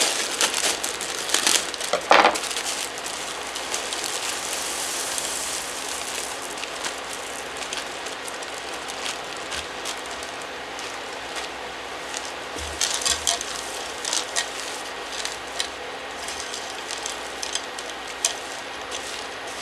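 Frozen peas poured into a hot skillet of simmering onions and celery, rattling and crackling as they land, then a steady sizzle with scattered crackles.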